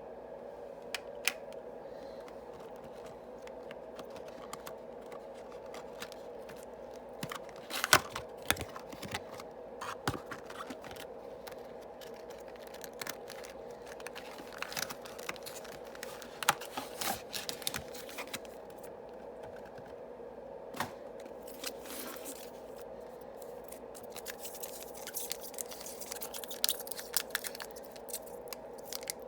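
Yu-Gi-Oh booster packs being handled and torn open: scattered crinkles, tears and sharp clicks of foil wrappers and cards, busiest about 8 seconds in and again near the middle and end, over a steady low hum.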